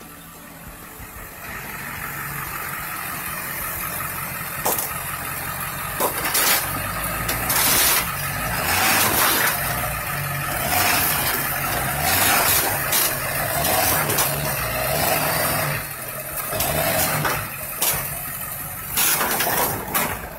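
Large truck engine revving and labouring as a Ford Excursion pushes into a parked Ford Taurus, with crunching sheet metal and several sharp bangs as the car's body panels crumple.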